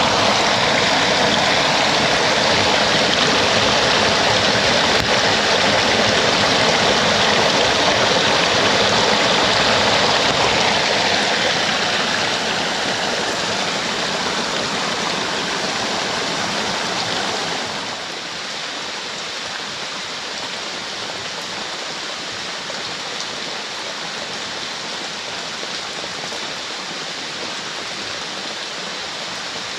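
Fast-flowing stream swollen by heavy rain, rushing steadily. It drops noticeably in loudness a little over halfway through.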